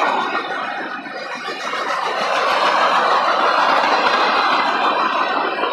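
Freight cars of a passing manifest train rolling by: the steady noise of steel wheels on rail, dipping briefly about a second in.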